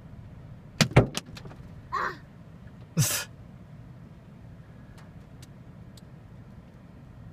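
Dime- to quarter-size hailstones striking the car's body and glass: a quick cluster of sharp hits about a second in, then two louder impacts around two and three seconds, with a few faint ticks later, over a steady low background noise.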